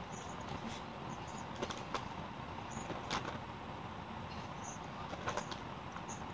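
A person chewing a mouthful of pizza, with a handful of short wet mouth clicks and lip smacks, one as a finger is licked, over a steady background hiss.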